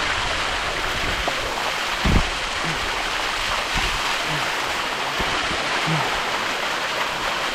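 Waterfall water rushing over rock close to the microphone, a steady loud hiss, with a single thump about two seconds in.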